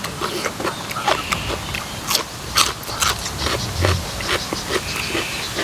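A person chewing a mouthful of papaya salad close to the microphone: irregular wet smacks and clicks of the mouth.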